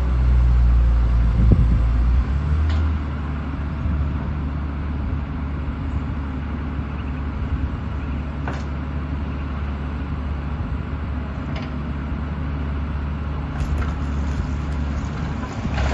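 Diesel engine of a large Sennebogen claw crane running steadily as it works, louder for the first few seconds, with a few faint knocks.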